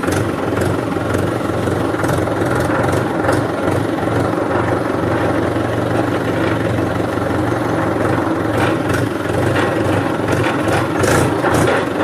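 An engine running steadily at idle, a low even rumble with no change in speed.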